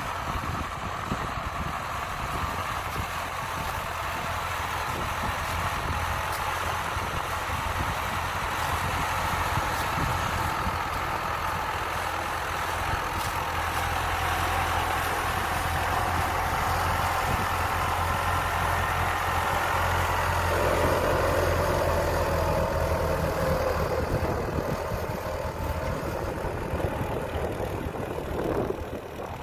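Iseki 725 four-wheel-drive tractor's diesel engine running steadily under load as it pulls a seven-disc plough through paddy soil. It grows louder as the tractor draws close and fades near the end as it moves off.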